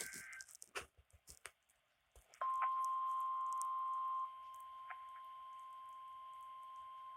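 NOAA Weather Radio test signal: the tail of a SAME data burst, a few clicks, then the 1050 Hz warning alarm tone starts about two seconds in. The alarm is one steady pitch, the sign of a weather-alert test on the station. About two seconds after it starts it drops sharply in level and carries on more quietly.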